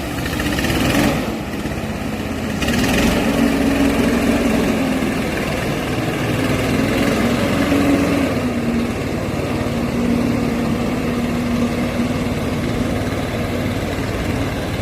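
Orchard speed sprayer's engine running, being test-run after servicing, its pitch stepping up and down several times. Two short rushing noises come in during the first three seconds.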